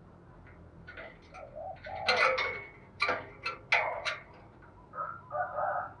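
Spotted dove cooing, soft low notes, with several loud, sharp noisy sounds about two to four seconds in.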